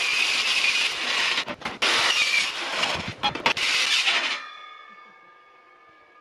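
Milwaukee circular saw cutting through eighth-inch aluminum plate, a harsh high-pitched screech broken by a few short gaps. About four seconds in the cut ends and the spinning blade winds down with a fading ringing whine.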